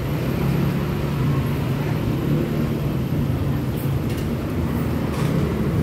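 City street traffic: a vehicle engine running close by with a steady low drone over general road noise.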